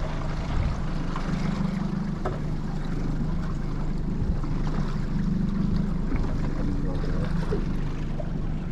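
Twin 70 hp outboard motors running steadily at low speed, a low drone, with wind and water noise around it.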